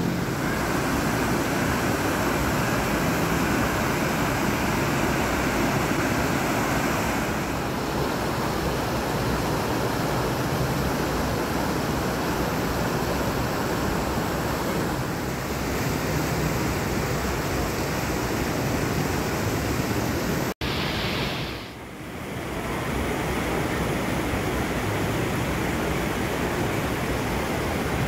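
Steady rushing of a river and a small waterfall pouring over rocks. There is a brief sharp dropout about two-thirds of the way through.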